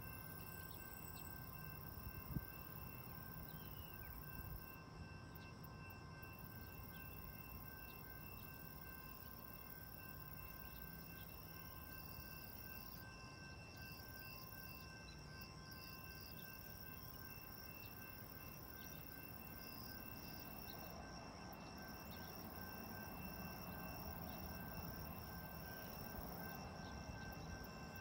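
Faint steady background: an even low rumble and hiss with several thin, unchanging high tones, and a single click about two seconds in.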